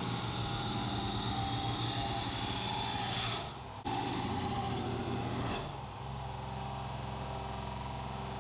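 Belt grinder running steadily while a steel rebar knife blade is ground on the belt. A high grinding hiss rides on the motor hum for the first three seconds or so, then the sound changes abruptly twice.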